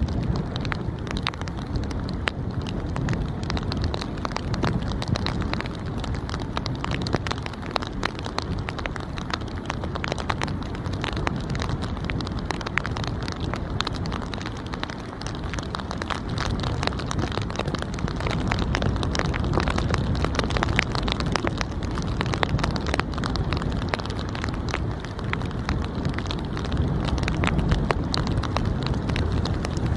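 Outdoor wind on the camera microphone: a steady rumble with dense crackling throughout.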